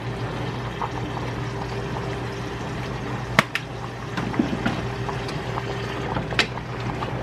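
Chicken hearts and gizzards frying in a saucepan, a steady sizzle over a low hum, with a few sharp clicks of spice jars and a spoon against the pot, the loudest about three and a half seconds in.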